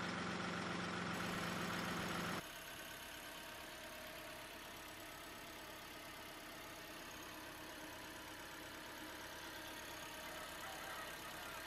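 A radio-controlled model vehicle running with a steady, idling engine-like sound. About two and a half seconds in it drops suddenly to a quieter, thinner running sound.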